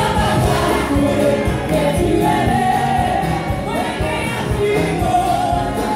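Gospel worship singers singing together into microphones over instrumental accompaniment with a steady beat.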